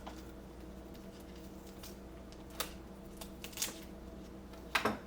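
A few faint, brief clicks and handling noises as tape is peeled back from the laptop screen's display cable connector, over a steady low hum.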